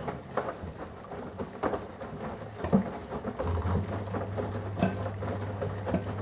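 Washing machine running a wash cycle: irregular thumps and swishes of the laundry and water tumbling in the drum, about once a second, over a steady motor hum that grows louder about three and a half seconds in.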